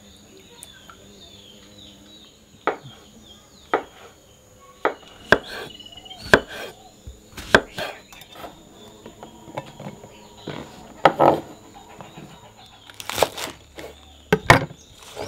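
A kitchen knife slicing mushrooms against a wooden cutting board: single sharp chops at uneven intervals, starting a few seconds in, with a cluster of knocks near the end.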